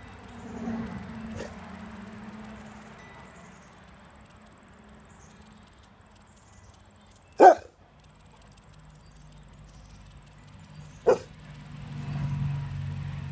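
A dog barks twice, two single short barks nearly four seconds apart, the first the louder.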